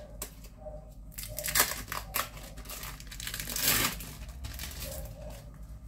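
Plastic wrapping of a packet of sliced cheese crinkling and tearing as it is handled and a slice is peeled out by hand, in several short rustling bursts, the longest near the end.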